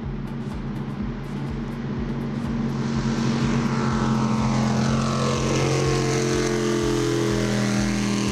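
Racing jet boat engine running hard and passing by, loudest around the middle, its pitch falling steadily as it goes past, over a steady low engine drone.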